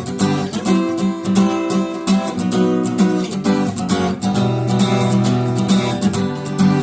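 Acoustic guitar strumming chords in a steady rhythm, several strokes a second.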